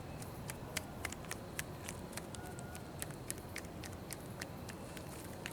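Hands massaging bare skin on the neck and back, giving irregular light slaps and clicks, a few each second, over a steady low outdoor background.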